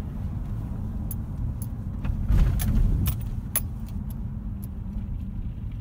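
Pickup truck cab on the move: steady low engine and road rumble, with a row of sharp clicks about twice a second through the middle and a brief louder rumble a little after two seconds in.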